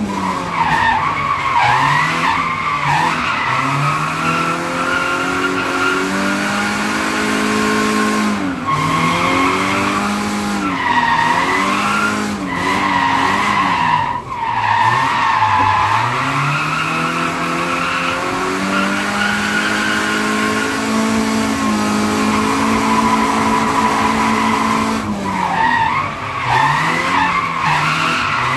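BMW E36 drift car heard from inside the stripped cabin. The engine is held at high revs, drops and climbs again several times, and the winter tyres squeal as they slide sideways and are worn down.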